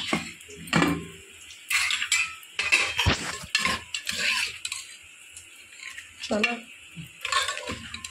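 Metal ladle scraping and knocking against the inside of an aluminium pressure cooker while chickpea curry (chana masala) is stirred, in short irregular clatters, with the cooker's lid clanking as it is handled near the start.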